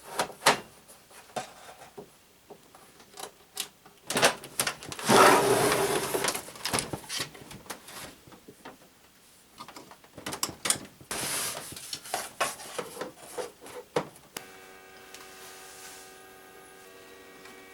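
Clicks, knocks and rubbing of plastic and metal parts as the inside of a FlashForge Adventurer 3 3D printer is handled, with two longer scraping stretches. In the last few seconds a steady machine hum with several tones comes on and continues.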